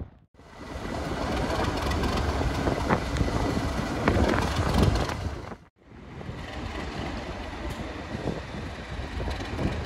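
Class 37 diesel locomotive, with its English Electric V12 engine, running past at close range coupled to a coach, engine and wheels on the rails, loudest around the middle. The sound cuts out abruptly about halfway, then comes back as a Class 37-hauled train approaching the platform.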